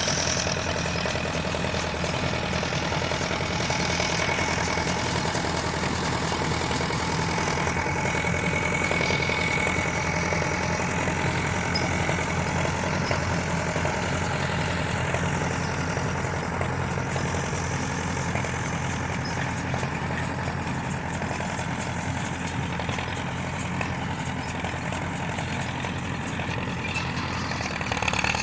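Tractor engine running steadily during hay baling.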